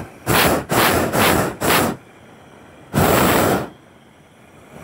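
Hot-air balloon's propane burner firing in short blasts: four quick blasts in the first two seconds, then one longer blast about three seconds in.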